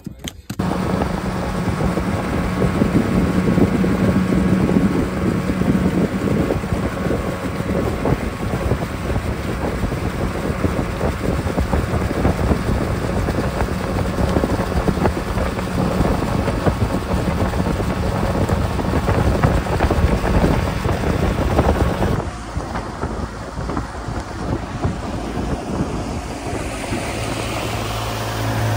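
Boat motor running while the boat travels across the lake, with heavy wind buffeting the microphone. About three-quarters of the way through the sound changes: the buffeting drops, and a steadier low engine hum and the rushing of water from the wake come through.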